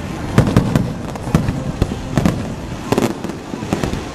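Fireworks display bursting overhead: a rapid, irregular string of sharp bangs, several a second, each trailed by a low boom.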